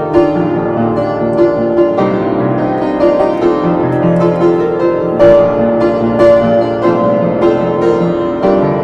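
Piano playing a chord progression in D minor, with a new chord or note struck about once a second.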